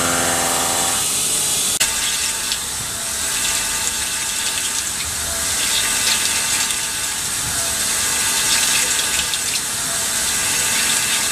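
CNC milling machine cutting a metal part under flood coolant: a steady pitched cutting tone that stops about a second in, then after a sudden break mostly the hiss and splash of the coolant stream, with faint cutting sound underneath.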